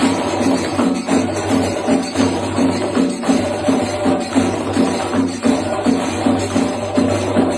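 Mizhavu copper pot drums playing a Pancharimelam rhythm: an even, steady pulse of drum strokes of roughly three a second, with small hand cymbals (elathalam) ringing over them throughout.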